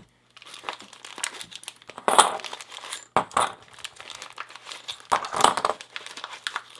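Tape being cut through and packaging pulled apart to free padlocks from their wrapping: irregular crinkling and rustling, with louder tearing about two seconds in and again a little after five seconds.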